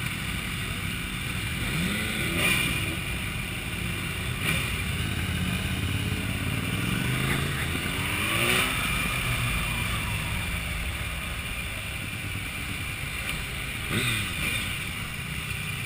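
Motorcycle engines running and revving as a group of sportbikes rides off, the revs rising and falling a few times: about two and a half, eight and a half and fourteen seconds in.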